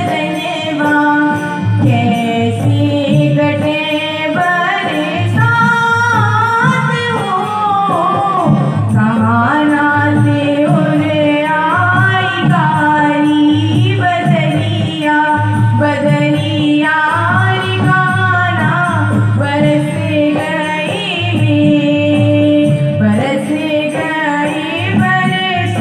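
Bundeli kajri folk song performed live: a woman singing a wavering, ornamented melody over a harmonium's held drone, with a hand drum keeping a steady beat.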